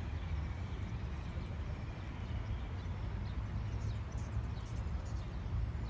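Steady low outdoor rumble, with a few faint high chirps about four seconds in.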